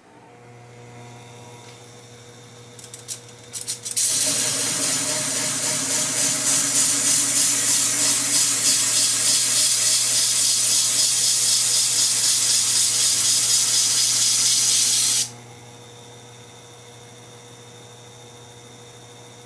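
A Scimech flat-hone sharpening machine is switched on and runs with a steady hum. About four seconds in, a curved groomer-shear blade is pressed onto the worn 80-grit disc, which grinds with a loud, even rasp that pulses slightly, raising a burr along the edge. The grinding stops abruptly about four seconds before the end, while the motor keeps humming.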